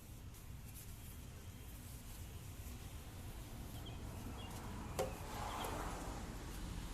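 Towel wiping a wet plastic headlight lens: a sharp click about five seconds in, then a short soft rubbing sound, over a low background rumble.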